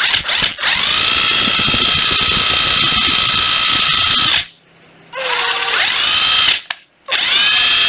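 Ryobi 12V cordless impact driver spinning freely as the trigger is pulled and released several times. Each run begins with a rising motor whine that then holds steady; the longest lasts about four seconds.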